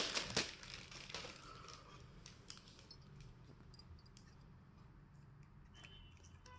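Packaging crinkling for about the first half-second, then small scattered clicks and light rustling from handling the parts, with a brief high tone near the end.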